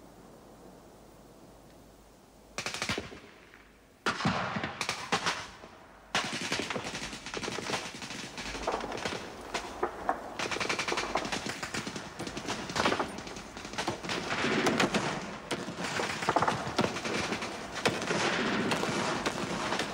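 Battle sound effects of machine-gun and rifle fire. Short bursts come in about two and a half and four seconds in, then the firing is near-continuous from about six seconds, with heavier shell blasts in the second half.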